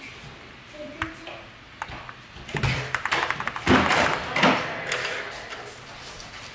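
Keystrokes on a mechanical keyboard: a few single key clicks, then a quick run of taps and heavier spacebar strikes between about two and five seconds in. The spacebar is a 7u SA-profile keycap stuffed with makeup remover pads to damp its sound.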